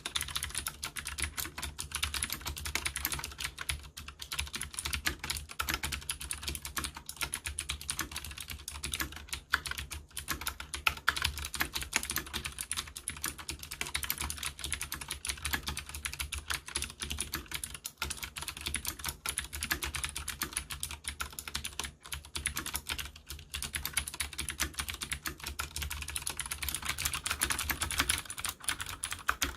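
Continuous fast typing on a Leopold FC750R mechanical keyboard with Cherry MX Blue switches: a rapid, unbroken stream of sharp clicky keystrokes.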